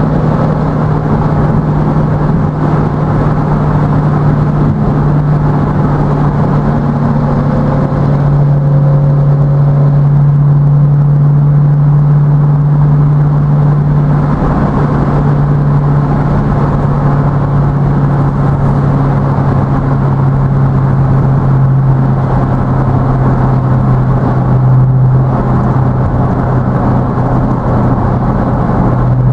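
Chevrolet V8 engine drone and tyre and road noise heard from inside the car's cabin while cruising at steady motorway speed; a loud, steady low hum that shifts slightly in pitch now and then.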